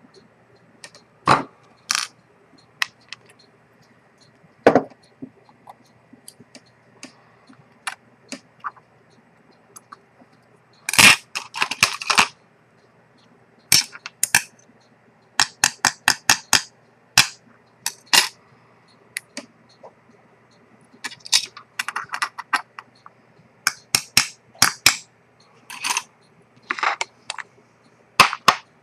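Small metal tools and watch parts clicking and tapping on a workbench: irregular sharp clicks, some in quick runs of several, with two heavier knocks in the first few seconds.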